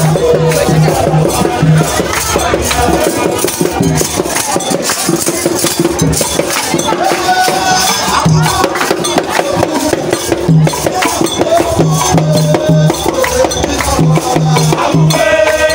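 Music with percussion: shakers and wood-block-like clicks over a low note that pulses in short runs, with pitched voices or melody lines running through it.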